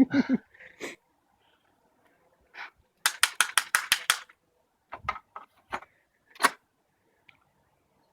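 Sharp mechanical clicks from an old stereo's switches and knobs being worked: a quick run of about eight clicks in a second, then a handful of separate clicks.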